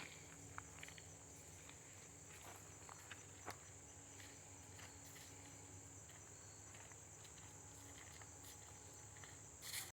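Faint steady high-pitched chorus of crickets or other insects, with a few soft footstep clicks on a trail.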